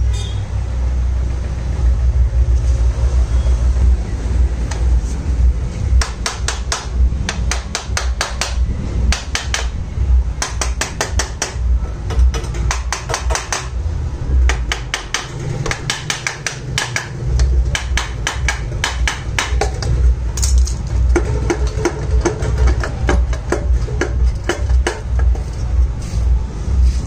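Ratchet wrench clicking in quick, even runs while the bolts of a Honda Activa's transmission (CVT) cover are undone, over a steady low hum.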